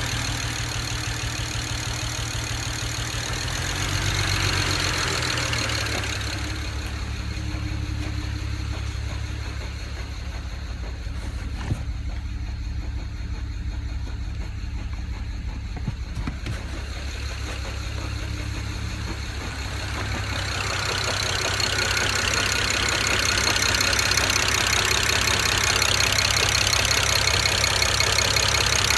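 BMW N54 twin-turbo inline-six idling roughly while misfiring on cylinder 6, running on five cylinders because of a bad fuel injector. The higher, hissy part of the sound fades for a stretch in the middle and returns for the last several seconds.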